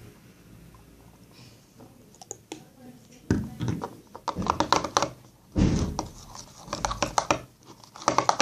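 A spoon scraping and clacking in a bowl as slime is stirred, in irregular bursts from about three seconds in.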